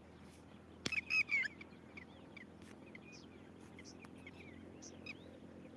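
Birds calling: a sharp click, then a loud run of short calls about a second in, followed by many scattered short chirps.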